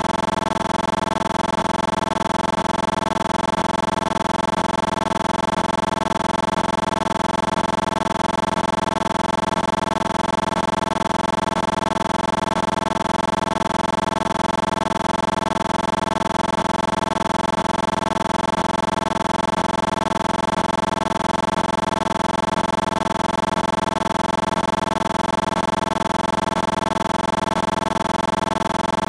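A steady, unchanging hum made of many held tones.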